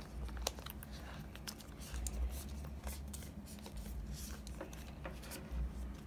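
Paper cable wrap rustling and crinkling with small scattered clicks as hands work a coiled cable out of it, over a low steady hum.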